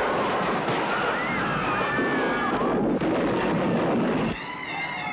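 Film soundtrack of a fairground explosion and collapse: a dense din of blast and crashing debris with people screaming over it. About four seconds in it cuts to a quieter stretch of wind whistling.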